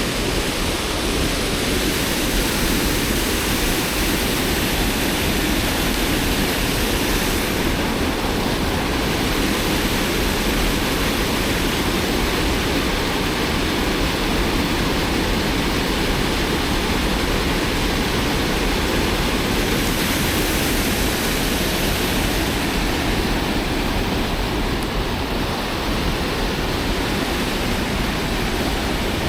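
Steady, loud rush of a flooded, fast-flowing river in high water.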